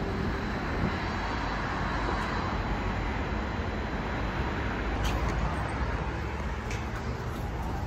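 Steady city street noise from road traffic, with a few faint clicks about five seconds in.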